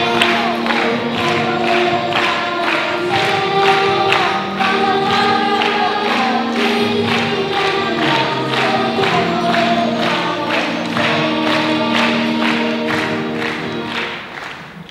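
A song with several voices singing together over a steady beat, fading down near the end.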